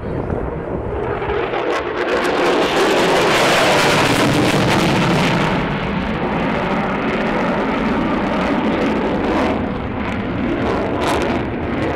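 Lockheed Martin F-22 Raptor's twin Pratt & Whitney F119 afterburning turbofans roaring as the jet manoeuvres in a display, loudest about two to five seconds in and easing a little after.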